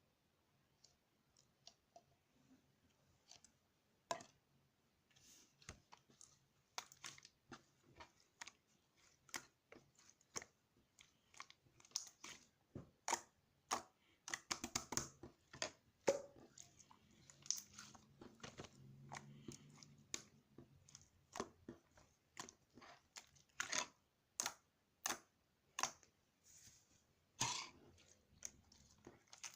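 Quiet, irregular crunching and clicking, sparse at first and coming thicker from about four seconds in.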